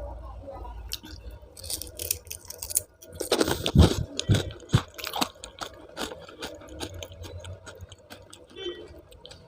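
Close-miked chewing and crunching of food, with wet mouth clicks and crackles throughout and a louder run of crunchy bites about three to five seconds in.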